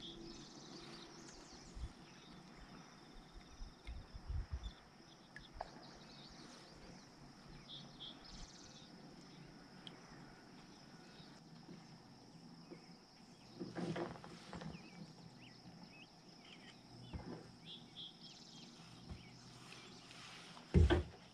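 Quiet open-water ambience: a steady high hiss with occasional short bird chirps. A few soft bumps and knocks come from handling the rod and kayak, the loudest just before the end.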